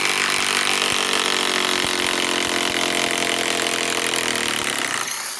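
DeWalt DCF891 mid-torque cordless impact wrench on a 3.5 Ah PowerStack battery, hammering steadily as it works to remove a tight fastener. The rapid impacts ease off near the end.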